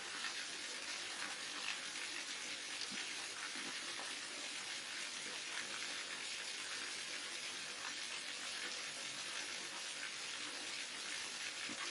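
Water falling steadily from a waterfall: a continuous rushing hiss with small splashes scattered through it.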